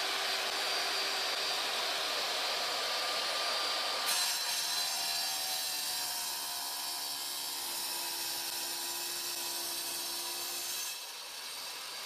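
RIDGID sliding wet tile saw running and cutting a tile in half: a steady motor whine with blade noise that changes about four seconds in, then drops and falls in pitch near the end as the saw winds down.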